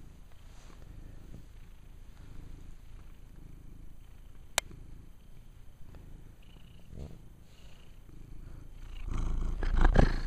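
Domestic cat purring steadily, close up. A single sharp click about halfway through, and louder handling noise near the end.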